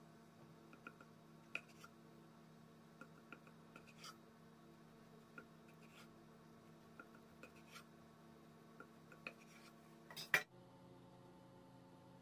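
Kitchen knife slicing through a thick rolled omelette on a wooden cutting board: quiet scraping with scattered light taps of the blade against the board, and a louder clatter about ten seconds in.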